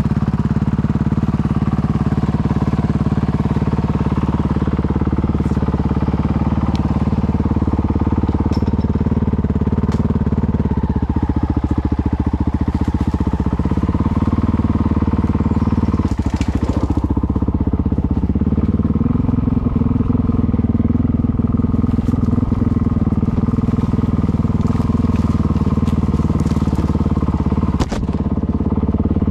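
Honda CRF450L's single-cylinder four-stroke engine running steadily as the motorcycle rides a dirt trail, with a few short knocks along the way.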